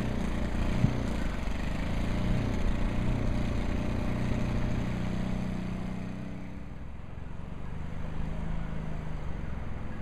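Low, steady rumble of a vehicle engine, fading about six seconds in and coming back faintly near the end.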